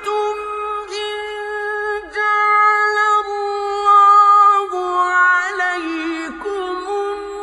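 A man reciting the Quran in slow, melodic tajweed, holding long high notes with wavering ornaments in the pitch and brief pauses between phrases.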